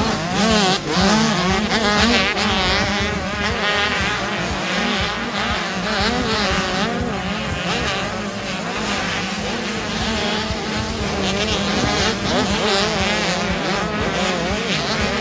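Several 85cc two-stroke motocross bikes racing, their engines revving up and down continuously as they ride the track.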